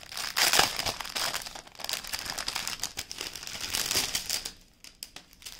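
Plastic packets of diamond painting drills crinkling as they are handled. The crinkling is dense for most of the time and dies down about four and a half seconds in, leaving a few light clicks.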